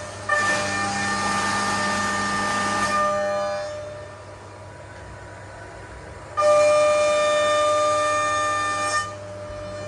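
CNC vertical mill cutting a part under flood coolant in two passes. Each pass is a loud, steady, high whine from the milling cutter over a hiss: the first starts just after the beginning, the second a little past six seconds. Between them, quieter spindle and coolant-spray hiss.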